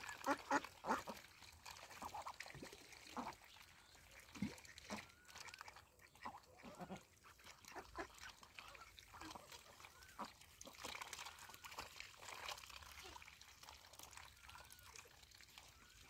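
Domestic ducks quacking in short calls, several close together at the start and then scattered throughout.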